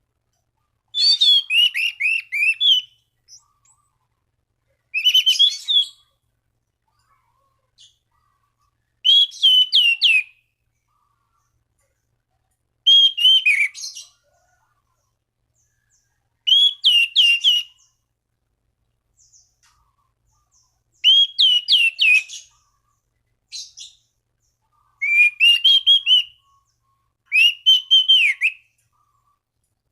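Anis cendana thrush singing: short phrases of clear, downslurred whistles, eight phrases about every three to four seconds with pauses between.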